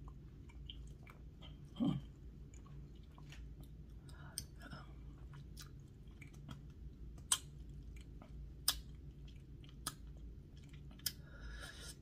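Close-miked chewing of a chocolate bar with the mouth closed: soft wet mouth noises and scattered sharp mouth clicks, the loudest three in the second half, with one short low throat sound about two seconds in.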